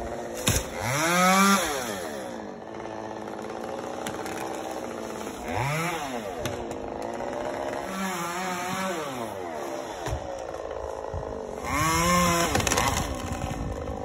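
Chainsaw running at idle, revved up and back down four times in short swells as it cuts at the top of a tree.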